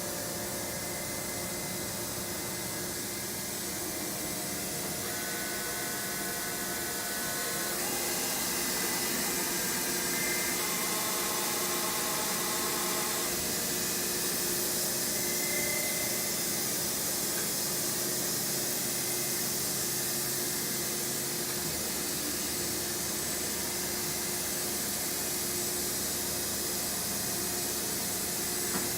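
FANUC Robodrill α-T21iEL machining centre running: a steady hiss with faint whining tones that shift in pitch every few seconds.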